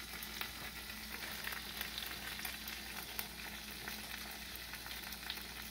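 Mashed potatoes sizzling between the hot plates of a closed Oster waffle iron: a steady sizzle with scattered small crackles.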